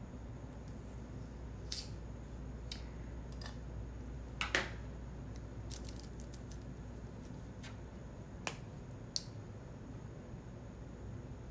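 Desk-top handling of planner paper, stickers and pens: a few scattered sharp clicks and taps, the loudest about four and a half seconds in, over a steady low hum.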